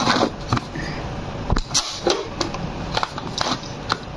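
Pull-cord manual food chopper being worked by hand: each pull of the string spins the blades inside the plastic bowl with a short clicking, rattling burst as they chop green herbs. The bursts come about twice a second, unevenly.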